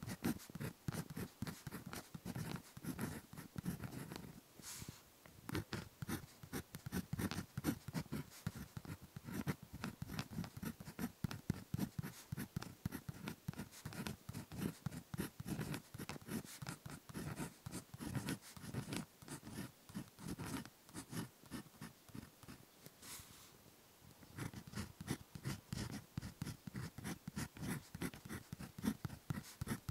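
Ballpoint pen writing Japanese handwriting on paper: a dense run of short scratching strokes, with brief lulls about five seconds in and again about 23 seconds in, as the pen lifts between words.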